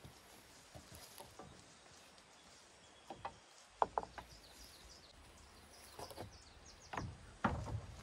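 Rough-sawn wooden boards and thin wooden stacking sticks clattering and knocking as they are laid on a lumber stack: a handful of sharp wooden knocks, loudest about four seconds in and again near the end.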